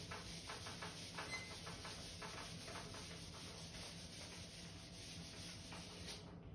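Whiteboard duster rubbing across a whiteboard in quick back-and-forth wiping strokes, faint. The strokes come several a second at first and thin out in the second half.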